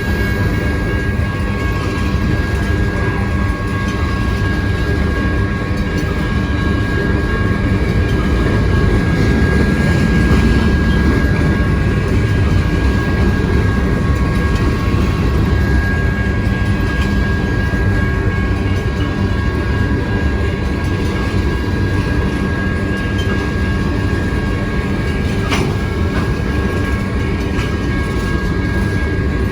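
Loaded grain train's freight cars rolling past at speed: a steady rumble of steel wheels on the rails, with a faint, steady high-pitched ring over it.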